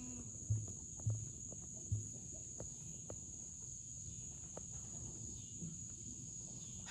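Night insect chorus, a steady high-pitched drone, with three low thumps in the first two seconds and a few faint clicks.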